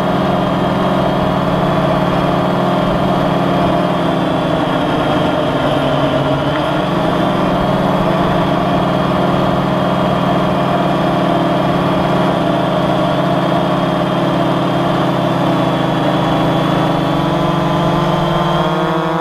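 Quadcopter drone's electric motors and propellers droning steadily, picked up by the camera it carries; the pitch wavers briefly about six seconds in.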